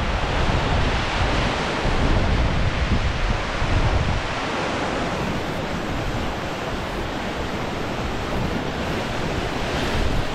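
Ocean swell breaking and washing over the rocks below, a steady rushing surf, with wind buffeting the microphone; the wind rumble eases about four seconds in.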